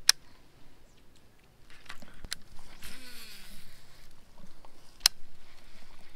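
Baitcasting reel being worked through a cast: a few sharp clicks of the reel, and a short whirring hiss about three seconds in as line pays out.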